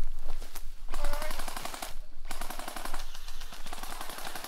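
Airsoft guns firing rapid full-auto bursts, a fast stream of sharp clicks broken by short pauses about one and two seconds in.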